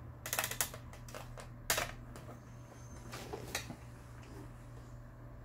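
Hands handling the plastic top of a Mother household sewing machine, making clicks and a light rattle: a quick cluster of clicks at the start, one sharper click a little under two seconds in, and two faint ones later.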